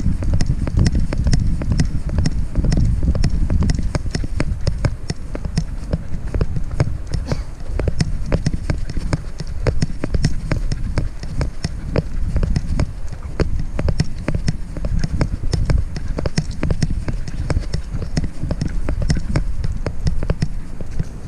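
A camera worn on a trotting dog's head, jostling as it moves: a heavy low rumble of handling noise on the microphone, with a fast, irregular run of clicks and taps from the dog's footfalls and the rattling mount.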